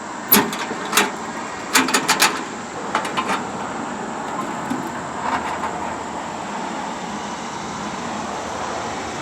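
Solid steel tool box being handled: about seven sharp metallic clicks and knocks in the first three and a half seconds, then only a steady background hiss.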